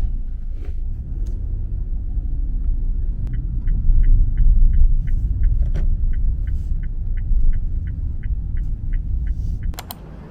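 Car interior: steady engine and road rumble, with the turn-signal indicator clicking about three times a second for most of the stretch. The rumble drops after a short sharp noise near the end.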